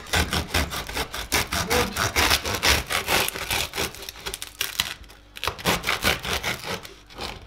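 A bread knife sawing through the hard crust of a home-baked loaf of Italian bread in quick back-and-forth strokes, with a short pause about five seconds in.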